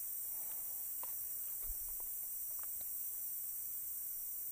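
Steady high-pitched insect chorus, typical of crickets, with a few faint scattered ticks.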